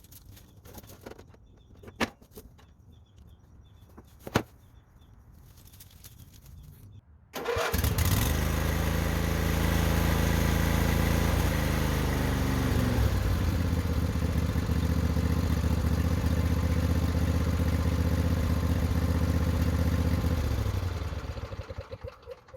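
A couple of clicks, then, about seven seconds in, the Craftsman DYT4000 riding mower's engine starts at once on the electric starter, its battery cable freshly replaced. It runs steadily, settles to a lower speed about twelve seconds in, and is shut off near the end, running down.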